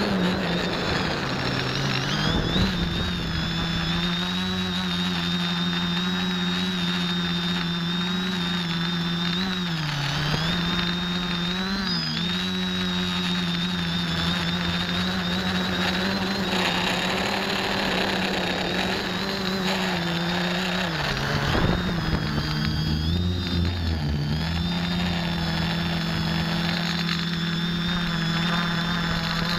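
X550AIOP quadcopter's electric motors and propellers in flight, heard from its onboard camera: a steady buzzing hum under a high whine. The pitch dips briefly about ten, twelve and twenty-one seconds in, as the rotors slow and speed back up.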